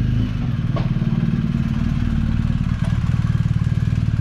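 BMW GS motorcycle's boxer-twin engine running steadily at low revs, with a fast even pulse.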